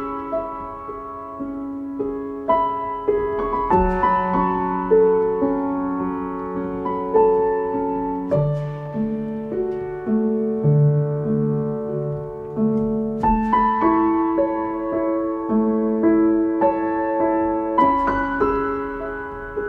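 Slow, calm solo piano music: struck notes and soft chords that ring and fade.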